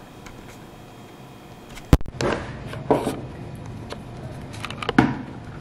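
Kitchen handling sounds: quiet for about two seconds, then a sharp click and a few soft knocks and rustles as the glass olive-oil bottle is set down on the tiled counter and the metal measuring spoon is worked over a glass bowl of raw chicken.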